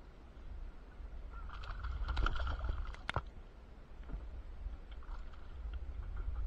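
Hooked smallmouth bass thrashing and splashing at the surface beside a kayak, the splashes sharpest and loudest two to three seconds in, over a steady low rumble.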